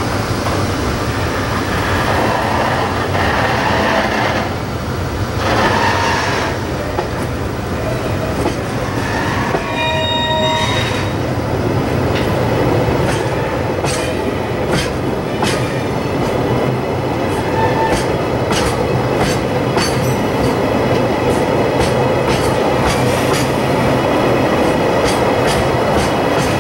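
A JR Freight EH200 electric locomotive pulling a train of oil tank wagons out of a station. It makes a continuous rolling rumble, with a brief ringing tone about ten seconds in. From then on the tank wagons' wheels click over rail joints at about one click a second.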